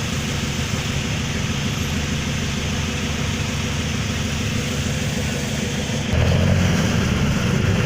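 Motor vehicle engine running with a steady low rumble, getting louder about six seconds in.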